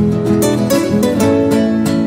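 Background Latin roots music led by plucked acoustic guitar.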